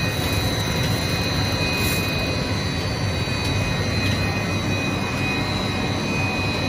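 Air bubble film production machinery running steadily: a constant low rumble with two thin, steady high whines on top.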